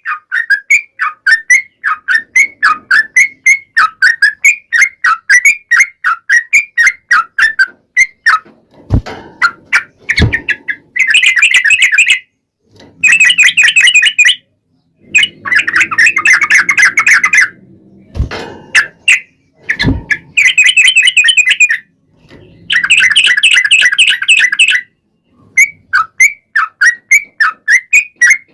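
Yellow-vented bulbul (trucukan) song: quick, evenly repeated chirping notes at first, then several harsh, rapid chattering bursts each lasting a second or two. The chirping returns near the end. Four sharp knocks come in the middle stretch, two of them close together.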